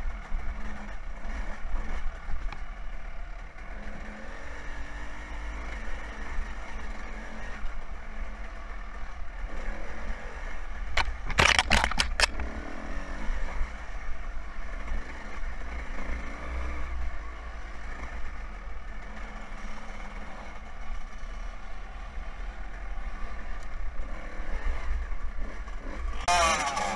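Two-stroke Suzuki RM125 dirt bike engine riding a forest trail, its pitch rising and falling as the throttle is opened and shut, with low wind rumble on the helmet microphone. A quick run of sharp knocks comes about halfway through.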